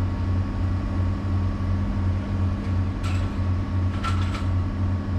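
Excavator's diesel engine running steadily, heard from inside the cab, with a low throb about three times a second. A few light clicks come about three and four seconds in.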